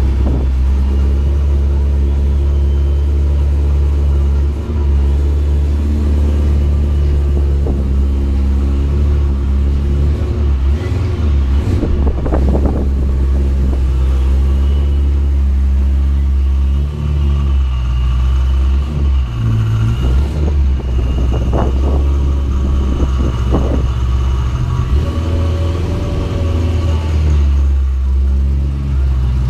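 Supercharged BMW E92 M3's V8 engine idling with a steady low rumble, with a few brief rises in engine sound about twelve seconds in and again around twenty to twenty-three seconds.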